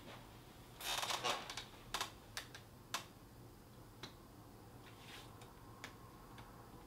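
Clothing rustle and a run of light clicks and knocks as two people sit down on metal folding chairs, loudest about a second in; a few softer single clicks follow, one about four seconds in.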